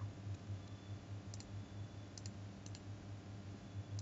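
Computer mouse button clicks, three in about a second and a half, each a quick double tick of press and release, over a low hum.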